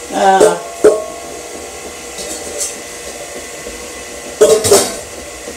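Stand mixer motor running on low, beating eggs into creamed butter and sugar for a cake batter. Over it come a few short louder sounds: one at the very start, a knock about a second in, and a clatter about four and a half seconds in.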